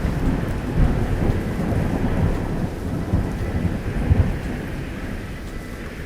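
Thunder rumbling over steady pouring rain, the rumble heaviest in the first few seconds and dying away near the end.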